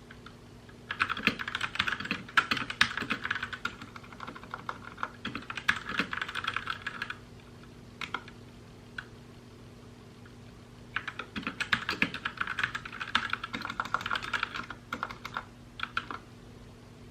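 Typing on a mechanical keyboard: two runs of rapid key clicks, each about five or six seconds long, with a few single keystrokes in the pause between them. A faint steady hum lies underneath.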